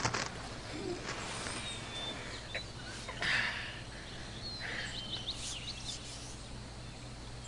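Quiet outdoor ambience: scattered short bird chirps over a steady low hum, with a couple of brief swells of noise about three and five seconds in.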